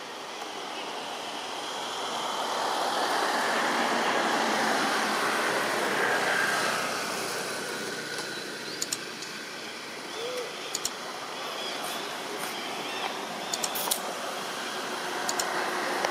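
Outdoor traffic noise: a rushing sound that swells over a few seconds and then fades, followed by a few faint scattered clicks.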